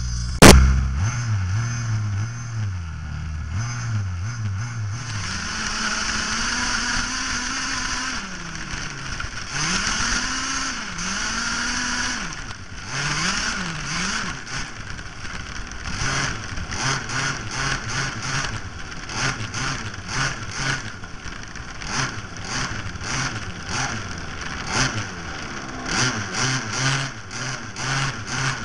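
Onboard sound of a radio-controlled model car driving over grass: its motor rising and falling in pitch as the car speeds up and slows, with a sharp crack about half a second in and frequent knocks and rattles as the chassis bounces over the turf.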